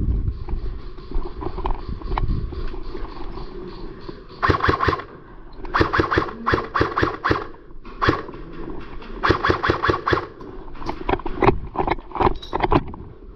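Airsoft rifle firing several bursts of rapid shots, the bursts a second or so apart.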